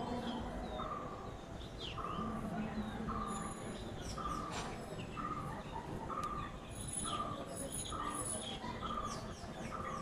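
Birds calling: one bird repeats a short, slightly falling note a little more than once a second, over scattered higher chirps and whistles from other birds.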